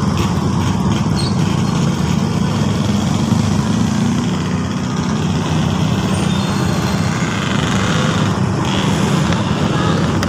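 Steady street noise of motor vehicle engines running close by, a continuous low hum with no clear changes.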